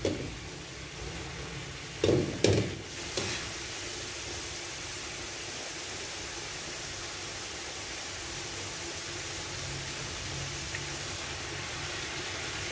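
Pork frying in a pan with a steady sizzle, and a few knocks of a utensil against the pan about two to three seconds in.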